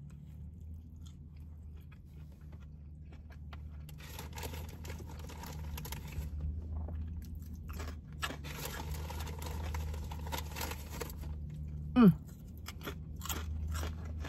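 Close-up chewing of a bite of Philly cheesesteak sandwich, with crunching, over a low steady hum. About twelve seconds in comes a brief, loud sound that falls in pitch.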